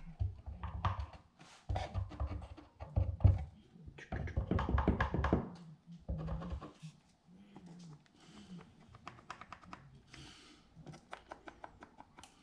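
Scattered light taps and knocks from handling thin wooden parts and a wood glue bottle on a work surface, busiest about four to five seconds in.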